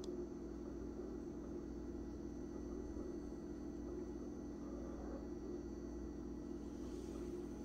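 Steady low hum of room tone, unchanging throughout.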